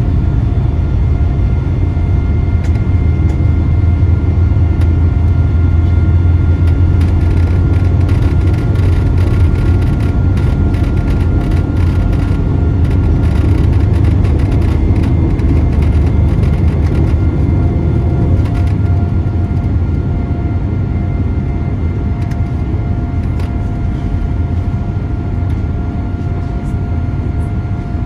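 Cabin noise of a Boeing 787-9 airliner: a steady, loud low rumble with a faint whine. Rattling clicks run from about eight to nineteen seconds in.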